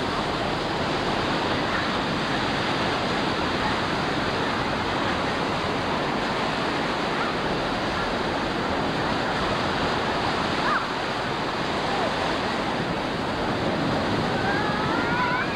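Ocean surf breaking and washing in around the waders: a steady rush of waves.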